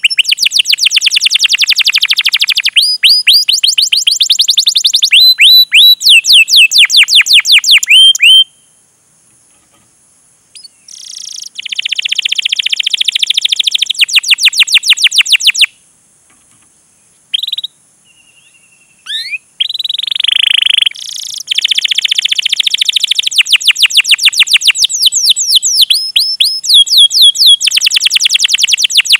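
Domestic canary singing: long runs of rapid, sharp repeated chirps ("cuit cuit"), broken by a pause about eight seconds in, then a rolling trill and a few single notes before the rapid chirping picks up again.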